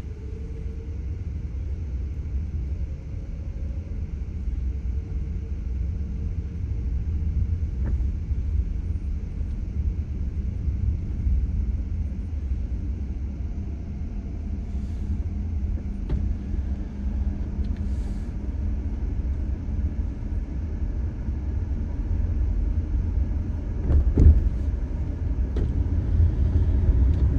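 Steady low rumble of background noise, with one brief knock about 24 seconds in.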